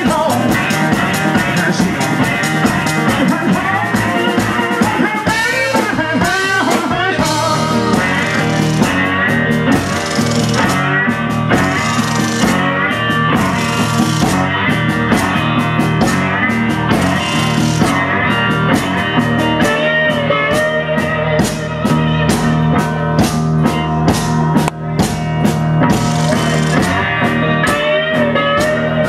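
Live blues band playing: a guitar lead whose notes glide up and down, over a busy drum kit.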